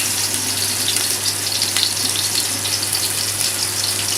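Onion and whole cardamoms sizzling in hot desi ghee in a pan, frying for a baghar (tempering), with small scattered pops over a steady low hum.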